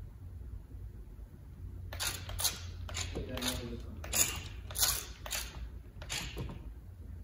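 Toy robot gun turret's servo motors making short whirring, clicking movements as it pans and tilts its gun. About two seconds in, some eight separate quick movements follow one another.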